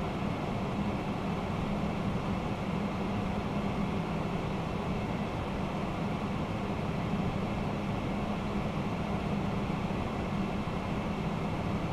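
Flight-deck noise of a Boeing 767-300ER climbing after takeoff: a steady rush of airflow with a constant low hum beneath it.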